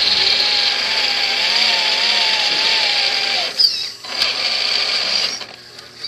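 Electric motor and gear drive of a radio-controlled rock-crawler truck whining under power, the pitch wavering as the throttle changes. It stops about three and a half seconds in, then runs again for about a second before stopping.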